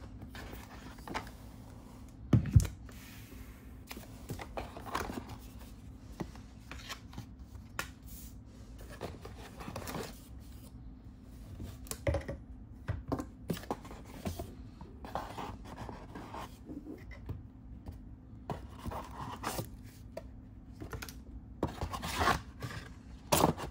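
Hands handling a cardboard box and its packaging: scattered scrapes, rubs and light taps of cardboard and plastic, with one heavier thump about two and a half seconds in.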